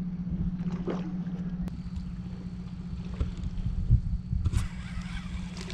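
A steady low mechanical hum under an uneven low rumble, with a few faint clicks and knocks.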